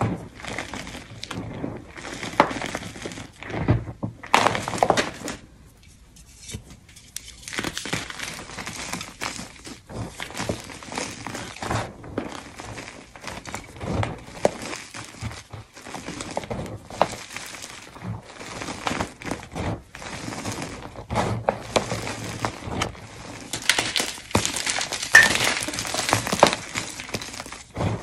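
Hands crushing and squeezing crumbled blocks of gym chalk in a bowl: irregular crunching and crumbling with soft thuds, easing off briefly about six seconds in.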